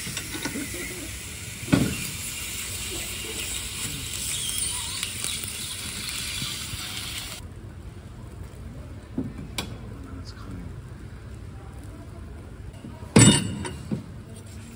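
Food sizzling and frying in a hot pan, a steady high hiss that cuts off suddenly about halfway. A quieter stretch follows with a few knocks, and the loudest thump comes near the end.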